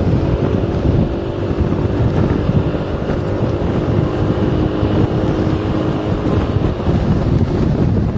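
A car driving along, with steady road and engine noise and wind buffeting the microphone. A low engine hum fades out near the end.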